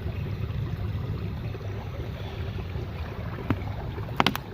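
Water running at a woodland stream, a steady low rushing with wind buffeting the microphone, and a few sharp clicks near the end.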